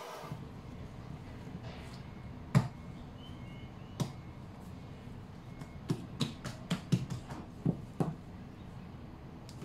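Hands folding and shaping wholemeal bread dough on a silicone pastry mat: a series of soft slaps and taps as the dough is pressed, lifted and turned. A few come in the first half, then a quicker run of about ten near the end.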